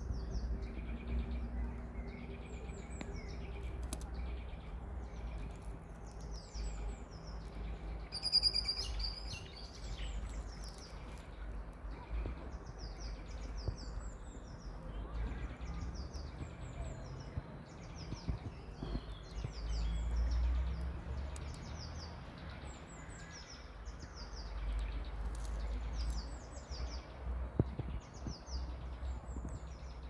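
Small birds chirping in the background: short, high chirps repeating every second or so, with one louder, higher call about eight seconds in. A low rumble runs underneath.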